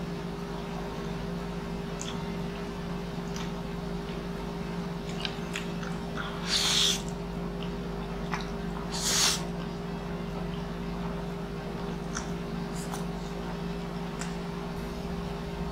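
Eating sounds of black bean instant noodles (Jjapaghetti) taken with chopsticks: two loud slurps, about six and a half and nine seconds in, with soft wet chewing and lip-smacking clicks between. A steady low hum runs underneath.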